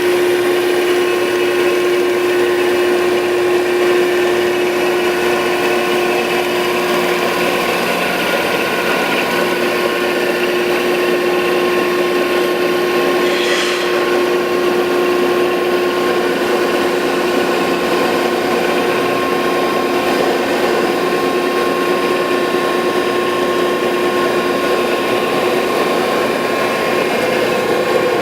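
Landis 1R universal cylindrical grinder running steadily under power, a continuous machine whine made of several held tones over a noisy bed. The lowest strong tone eases off about a quarter of the way in, and a brief hiss comes about halfway.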